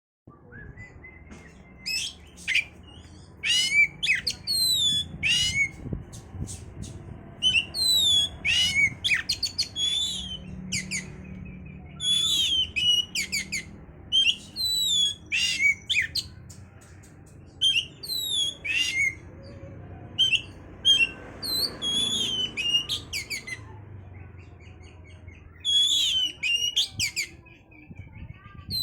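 Oriental magpie-robin (kacer) singing a loud, fast song of short phrases: sharp high whistles and chattering notes sliding up and down, with brief pauses between bursts. This is the aggressive 'full fighting' style of song played as a lure recording to rouse other kacers into song and breeding condition.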